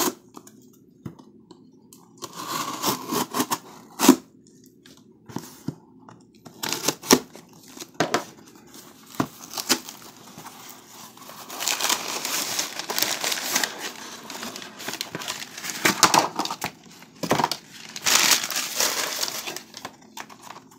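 Cardboard shipping box being opened by hand: packing tape torn, flaps pulled open, and packing paper and a plastic bag crinkled and rustled. Scattered sharp knocks and clicks, with longer spells of crinkling about halfway through and again near the end.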